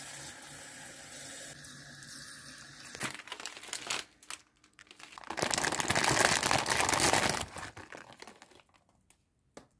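Kitchen tap water running steadily into a plastic bowl for about three seconds. Then a plastic packet of dried glass noodles crinkles loudly as it is handled and opened, fading out near the end.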